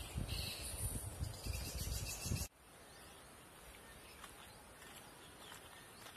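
Outdoor ambience: wind rumbling on the microphone with faint chirps, then an abrupt cut about two and a half seconds in to a quieter, steady high-pitched hiss.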